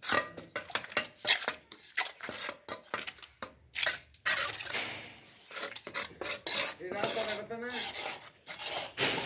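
Steel shovels and iron concrete pans scraping and clanking in wet concrete mix, in quick irregular strokes, as the mix is shovelled into pans for a hand-poured floor slab.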